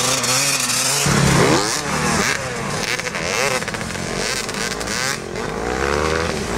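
Several dirt-bike engines revving and accelerating in snow. Their pitches overlap and keep rising and falling.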